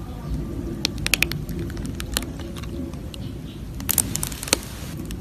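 Slime crackling and popping as it is squeezed and worked against a racket, with a few sharp pops about a second in and a louder burst of crackles near the end, over a steady low rumble.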